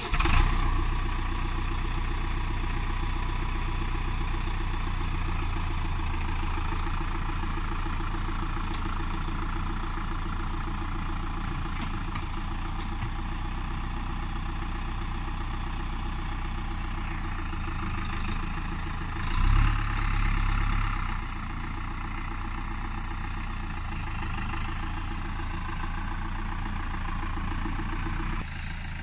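Tümosan 52.100 tractor's diesel engine running steadily while the tractor works, surging louder for about two seconds roughly two-thirds of the way through.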